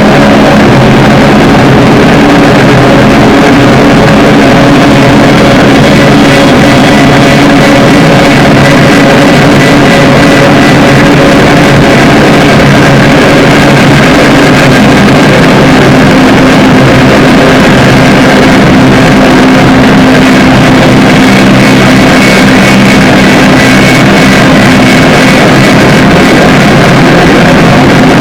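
Drone-noise music: a loud, unbroken wall of distorted, sustained low tones under a thick noisy haze, with no beat or pauses.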